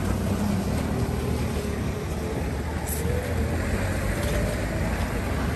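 Steady low outdoor rumble with faint voices now and then.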